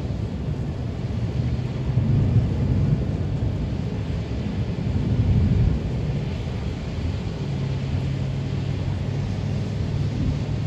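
Thunder rumbling low in swells over the steady hiss of rain. About seven seconds in, the rumble gives way to a steady low hum.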